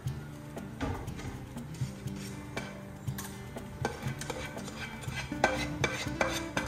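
A cooking spoon scraping and clinking against a frying pan as sauce is scraped off it into a stainless steel saucepan. The scrapes and taps come thickest in the last couple of seconds.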